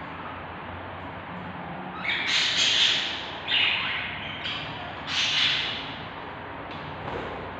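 Budgerigar chicks in a nest box giving harsh, raspy begging squawks in three loud bouts over a steady low hiss.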